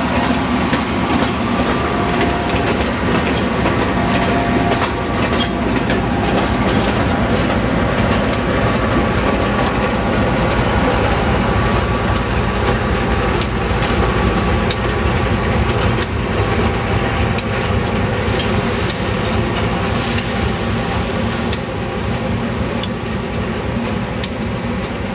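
Passenger train led by an ALCO RS-3 diesel locomotive going past close by: a steady diesel rumble with the wheels clicking over rail joints about every second and a half, easing off slightly near the end as the train moves away.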